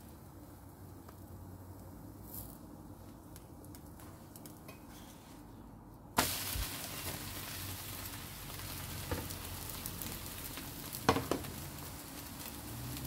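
Crepe batter hitting a hot frying pan and sizzling, starting suddenly about six seconds in and continuing steadily, with a few light clicks later on. Before that there is only a faint low hum.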